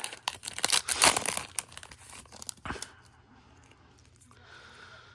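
Wrapper of a Topps baseball card pack being torn open and crinkled, a dense crackling for the first couple of seconds ending in one sharp snap.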